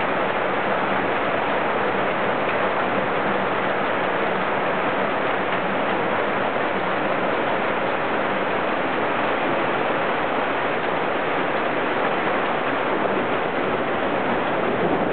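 Rain falling steadily, an even hiss with no thunder.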